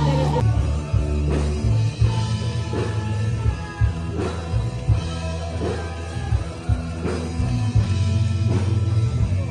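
Background rock music with drums, bass and guitar, with a steady beat over held bass notes.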